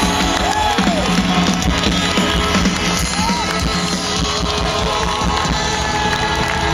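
Live rock band playing through a festival sound system, heard from among the crowd on a phone, with crowd noise mixed in.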